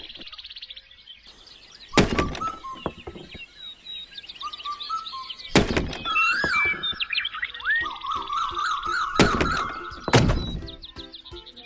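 Four heavy thuds a few seconds apart, over a busy layer of short chirping and sliding whistle tones with music.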